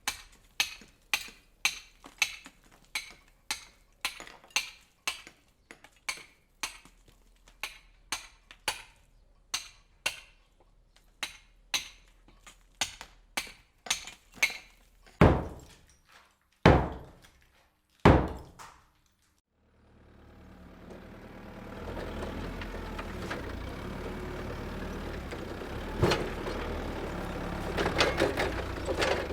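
Regular sharp impacts, about two a second, typical of hammering at a construction site, then three heavier blows that ring out. After a brief silence, the steady engine noise of construction machinery rises and keeps running.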